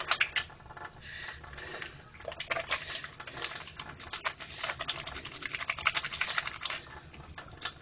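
Wet hands rubbing a bar of handmade soap into a lather: a rapid, irregular wet squishing and rubbing.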